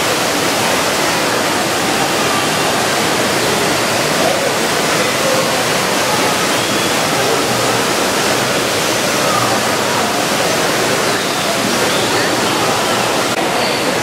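Water falling into a pool, a steady rush of splashing water.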